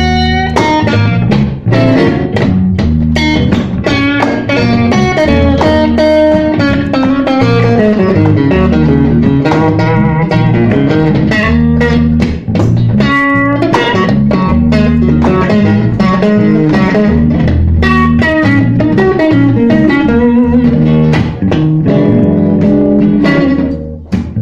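Blues music: an electric guitar playing a lead line of quick notes over a bass line.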